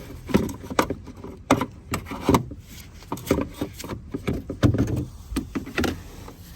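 Irregular clicks and knocks of metal parts being handled: a car's windshield wiper linkage under the cowl being moved and worked on by hand. The linkage is broken and needs replacing.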